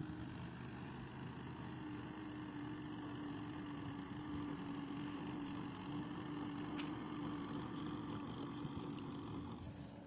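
Steady hum of a running motor at one constant pitch, with a few faint clicks over it. The hum drops away just before the end.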